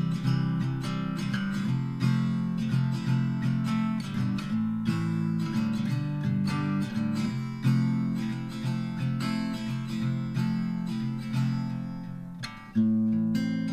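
Background music led by strummed acoustic guitar, with a steady run of chords and a fresh strum near the end.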